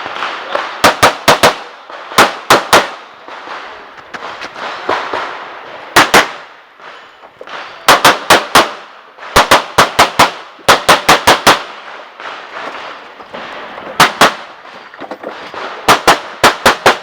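Glock 34 9mm pistol fired in rapid strings of two to five shots, with short pauses between strings as the shooter moves between target arrays during a timed stage.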